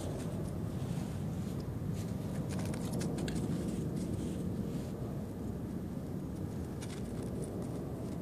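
A steady low rumble with scattered faint crunches of snow as a dog moves and noses through it; the crunches come in a cluster a few seconds in and again near the end.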